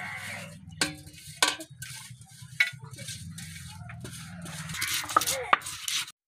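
Steel plate scraped and tapped against a flat stone grinding slab as mustard seeds and garlic are pushed off it, with several sharp clinks of metal on stone over a steady scratching.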